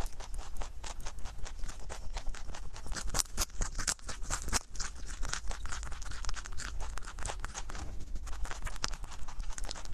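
Rabbit chewing a raw carrot close to a microphone: rapid, crisp, irregular crunching.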